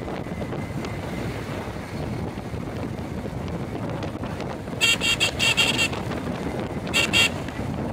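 Wind buffeting the microphone and road noise from riding in traffic, with a vehicle horn giving a quick run of short beeps about five seconds in and two more near the end.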